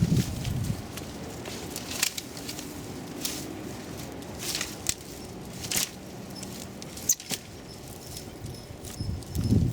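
Skirret roots being dug and pulled from thawed garden soil: scattered crackles, scrapes and rustles of soil and roots breaking loose, with heavier handling noise near the start and end.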